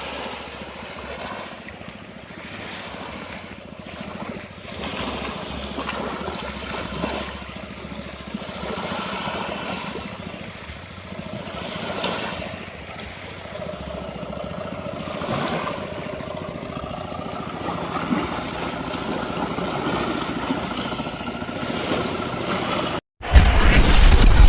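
Wind on the microphone over open water, with lapping waves and a faint steady hum. A short dropout about a second before the end, then loud background music cuts in.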